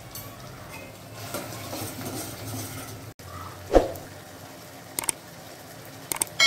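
Steel ladle stirring tomato and spice masala frying in oil in a steel pot, with a soft sizzle and scraping; the masala is being fried down. About halfway through the ladle knocks loudly against the pot once, and a few sharp clicks come near the end.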